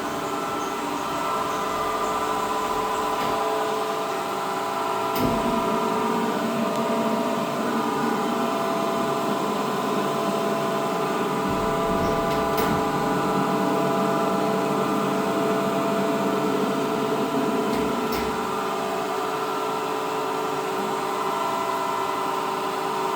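Equiptop ESG-3A1628 three-phase surface grinder running: a steady machine hum with several held tones, broken by a few sharp clicks.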